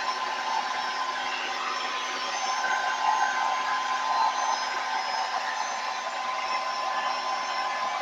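Handheld hair dryer blowing steadily with an even rush of air and a constant whine, drying a freshly bathed dog's wet coat.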